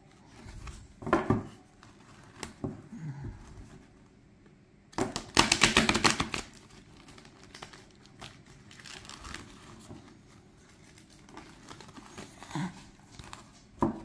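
A thick 110-card deck of glossy oracle cards being shuffled by hand: scattered handling rustles, then, about five seconds in, a fast run of card flicks for about a second and a half as the deck is riffled, followed by quieter sliding and tapping as the halves are pushed back together.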